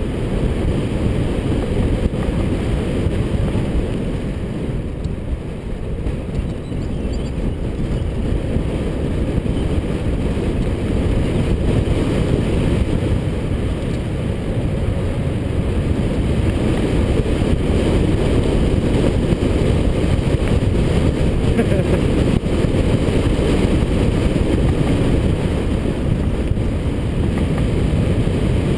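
Steady low wind rumble on a helmet-mounted GoPro's microphone while riding a mountain bike fast down a paved lane, with tyre noise on the asphalt.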